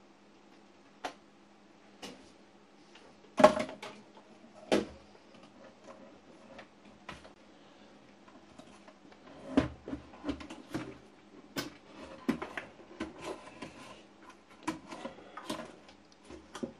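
Knocks, clunks and rattles of a record player's autochanger mechanism being handled and lowered into its case. There are two loud knocks about three and a half and five seconds in, then a run of smaller clicks and taps from about ten seconds on as it is settled in place.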